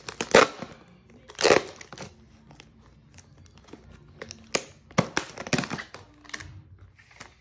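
Thin clear plastic container being gripped and its snap-on lid pried open and lifted off: a run of sharp crackles and snaps of the plastic, loudest in the first two seconds and again around five seconds in.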